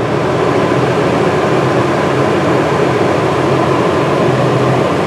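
A truck camper's 9,000 BTU rooftop air conditioner running on low cool: a steady blowing hum.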